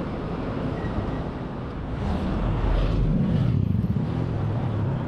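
A car passing on a street over steady traffic hum, growing louder about two seconds in and easing off near the end.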